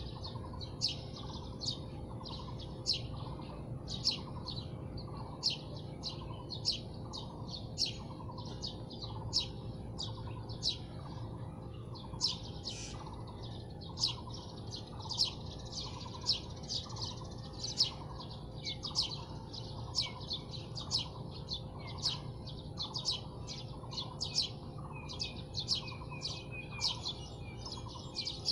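Many small birds chirping in a dense chorus of short, quick, falling calls, several a second, over a steady high-pitched insect drone and a low, steady rumble.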